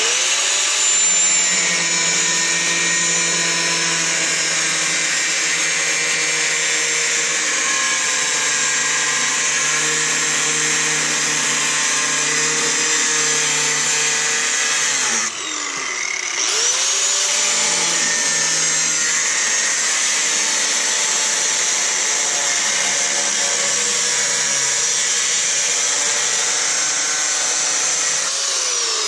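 A 4.5-inch angle grinder with a thin cutoff wheel cutting through the rusted sheet-metal rocker panel of a pickup, a steady high whine. It spins up at the start, winds down about halfway through, spins back up a second later, and winds down again near the end.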